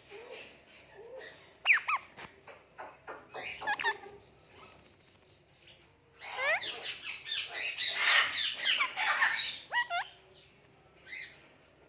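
Indian ringneck parakeet chirping, whistling and squawking in quick swooping notes, with a few sharp calls about two seconds in and a long, louder run of rapid chatter from the middle on.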